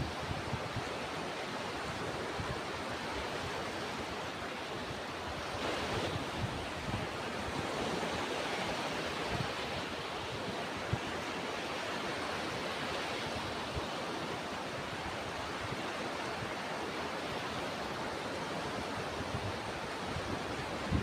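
Ocean surf washing in a steady rush, with wind buffeting the microphone in low rumbles.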